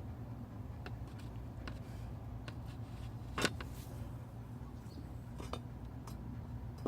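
A few light clicks and knocks, with one sharper click about three and a half seconds in followed by a brief hiss, over a steady low hum.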